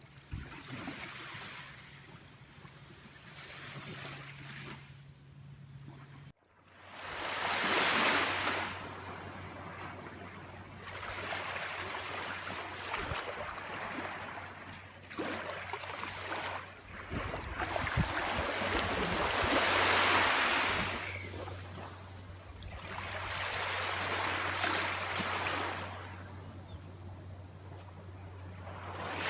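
Sea waves breaking and washing up a beach, each one swelling and fading away every four or five seconds, quieter for the first six seconds. A steady low hum runs underneath.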